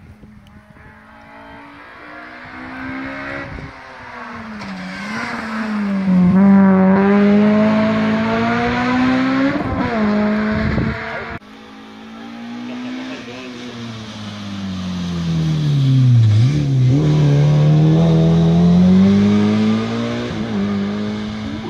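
Two rally cars in turn coming up the stage and passing close by, engines revving hard; each engine note dips and climbs again as the driver lifts off and gets back on the throttle. The first car's sound cuts off abruptly about eleven seconds in.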